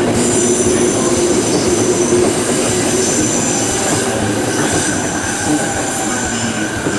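Tokyo Metro Marunouchi Line 02-series train running out of a tunnel on a curve, its wheels squealing in several high steady tones over the rumble of the running gear. The squeal fades over the last second or two as the train passes.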